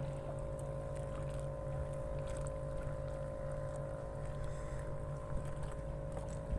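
A boat engine running steadily at a constant pitch, a low hum with a thin whine over it, with a few faint knocks.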